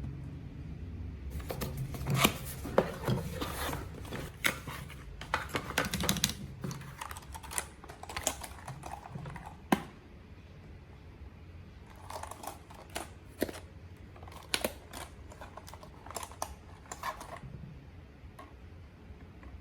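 Keycool KC84 mechanical keyboard clicking and clacking in irregular clusters of keystrokes, with a pause about halfway through.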